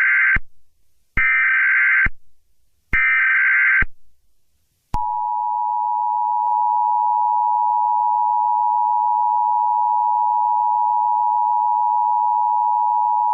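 Emergency Alert System tones: three short, buzzy bursts of the SAME digital header, each under a second and about a second apart. From about five seconds in they are followed by the long, steady two-tone attention signal.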